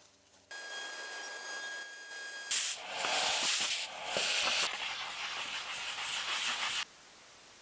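Surface of a freshly engraved wooden block being sanded, with irregular rough rubbing strokes for about four seconds. Before them come about two seconds of steady hiss with a thin high whine.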